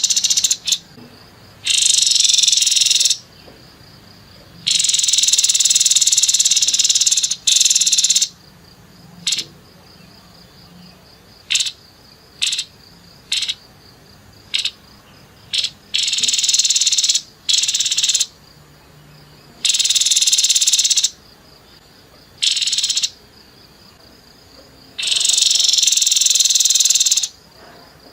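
Grey-headed babbler giving harsh, rapid rattling calls in repeated bursts of one to two and a half seconds, with short single chips between them.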